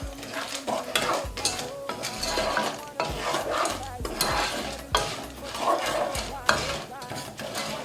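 Popcorn cooking in a pot of hot oil: irregular sharp pops and clicks over a steady sizzle, with the pot rattling.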